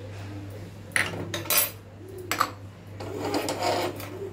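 Kitchenware knocking against a small nonstick pan as dry coconut powder is tipped in from a cup: a few sharp knocks, then a rougher scraping stretch near the end.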